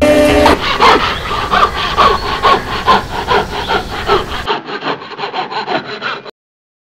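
Hand saw cutting through wood in quick back-and-forth strokes, about two or three a second, stopping suddenly near the end.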